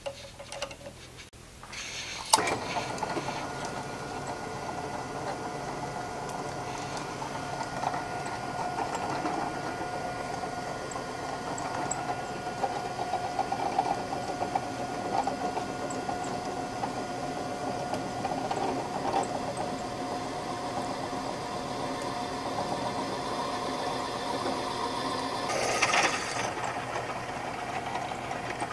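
Drill press starts about two seconds in and runs steadily with a constant hum as a half-inch twist drill bores through two clamped steel plates. There are light chuck-key clicks before it starts, and a brief louder burst of cutting noise near the end.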